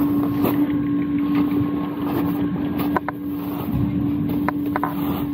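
Skis sliding over groomed snow with wind on the microphone, under a steady low hum, and a few light clicks in the second half.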